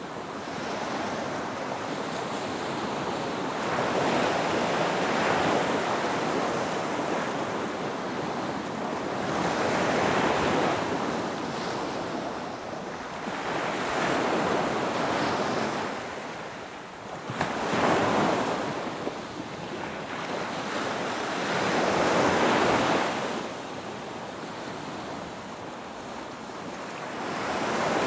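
Ocean surf breaking on a beach, each wave swelling and washing back roughly every four to five seconds, with one sharper break a little past the middle.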